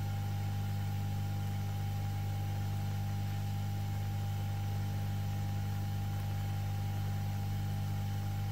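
Steady low electrical hum with a thin, constant whine above it and a faint hiss, from running electronics-rework bench equipment; it holds unchanged throughout.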